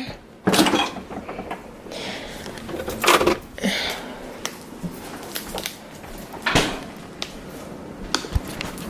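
A few separate knocks and clunks of household objects being handled, with soft rustling between them.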